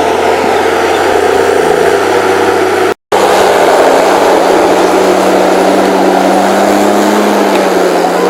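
The 6.7-litre, 238 hp diesel engine of an HSM 904 S forestry machine running steadily and loudly. It breaks off completely for a split second about three seconds in, then carries on at a slightly different pitch.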